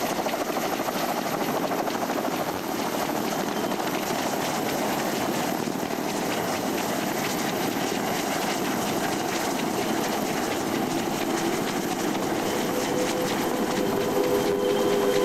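Tandem-rotor H-46 Sea Knight helicopter running steadily, with fast rotor-blade chop, as it hovers and sets down on a ship's flight deck. Music fades in near the end.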